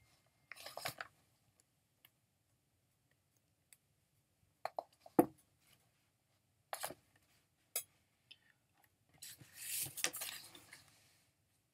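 Faint scattered clicks and small knocks of handling at a computer desk, with a soft rustle about nine seconds in.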